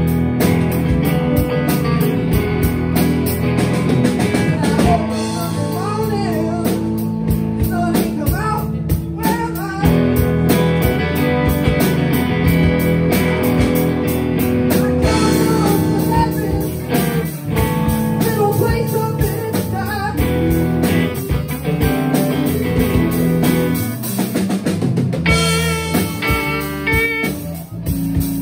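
Live blues band playing: electric guitars over electric bass and a drum kit, with a guitar playing bending lead lines.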